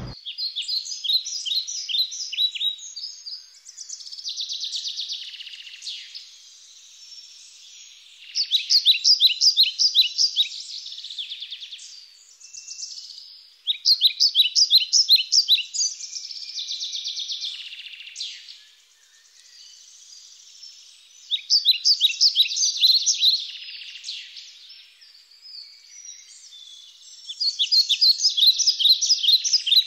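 Songbird singing: five bursts of rapid, high repeated notes, each about two seconds long, with softer chirping between them.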